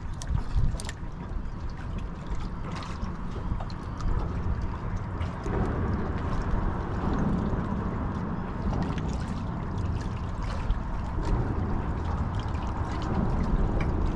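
Water lapping and gurgling against a kayak's hull and the wooden bridge pilings beside it, over a steady low rumble, with scattered light clicks.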